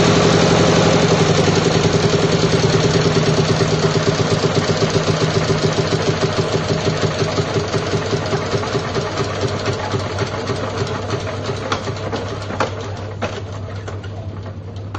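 Single-cylinder four-stroke diesel engine running with a steady knocking beat, then being shut down: the strokes slow, thin out and fade as it runs down, ending in a few separate knocks. A steady low hum continues underneath.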